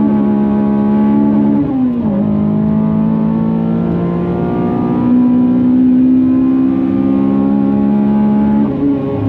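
Honda Civic FN2 Type R's K20 four-cylinder engine running at high revs under load. The pitch dips sharply about two seconds in, climbs slowly, holds steady for a few seconds, then dips again near the end.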